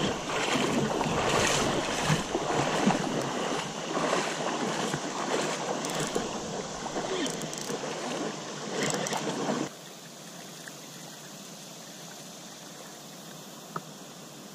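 Shallow river water sloshing and splashing right at the microphone, loud and uneven. About ten seconds in, it drops suddenly to a quieter, steady rush of flowing river water.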